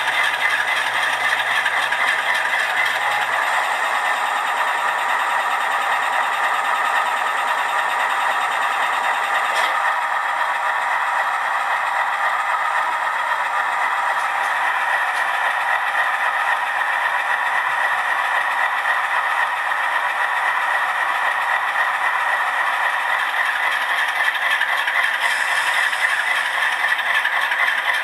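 Diesel locomotive engine sound from an HO-scale model locomotive's DCC sound decoder, played through the model's small speaker: a steady, rattly drone with almost no bass. Its lower part drops away about ten seconds in.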